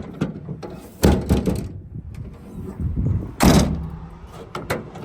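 Toyota Tundra tailgate and its latches being worked: a series of metallic clunks and knocks, the heaviest about one second and about three and a half seconds in.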